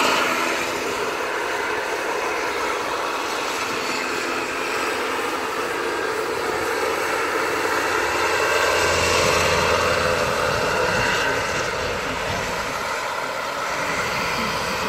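Radio-controlled scale model helicopter, a replica of a Eurocopter EC135, flying and hovering: the steady whine of its motor and spinning rotor.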